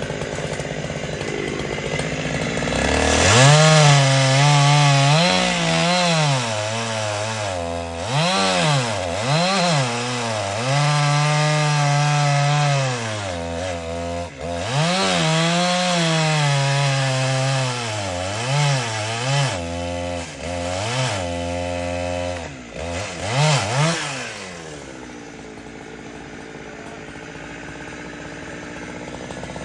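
Chainsaw cutting into a large tree: the engine is revved up and down again and again and held at high revs for stretches of a few seconds. About 25 seconds in it falls back to a quieter low idle.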